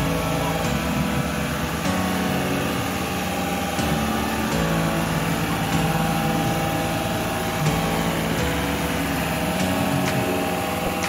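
Excavator's diesel engine running steadily, its low note shifting a few times as the load changes.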